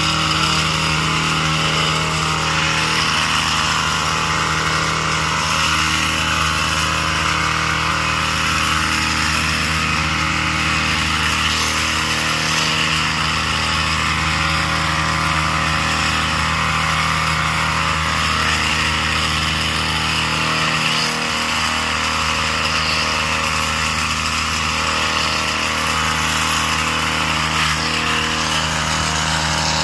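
Small petrol engine of a hedge trimmer running steadily at high speed while cutting bushes, easing off briefly about two-thirds of the way through.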